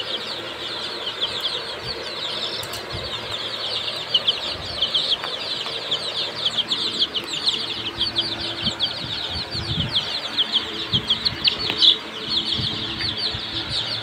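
A brood of young Sonali chicks peeping continuously, many short high falling peeps overlapping, with a few louder ones standing out.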